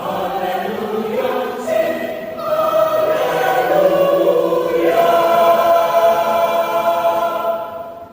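Church choir singing a spiritual in parts, moving through several chords and then holding one long chord that fades out near the end.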